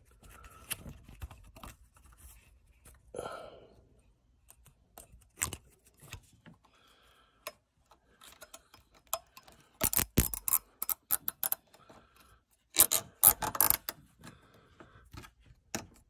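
Plastic zip tie being threaded around a Honda Civic's seat belt height-adjuster rail and pulled through its head: scattered light clicks and rubbing, then two quick runs of rattly ratchet clicks about ten and thirteen seconds in as the tie is cinched to take up the play that makes the belt rattle.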